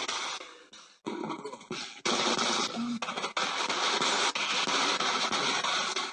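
Loud, harsh crackling static, cutting out briefly about a second in and again near two seconds, then running on.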